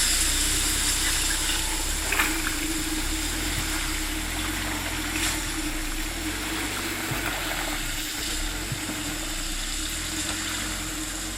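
Off-road vehicle's engine running slowly with a steady low hum, under a steady rush of water.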